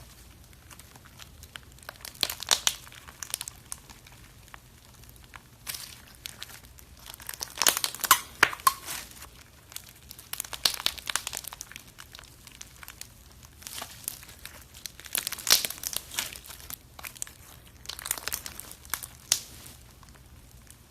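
Slime being squeezed and stretched by hand, giving bouts of sharp crackling and popping clicks with short quieter gaps between them.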